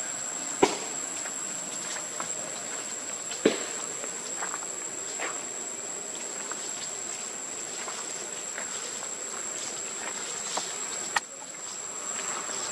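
Steady high-pitched insect drone with faint rustling of macaques' footsteps on dry leaf litter, broken by three sharp clicks: one about half a second in, one about three seconds later, and one near the end.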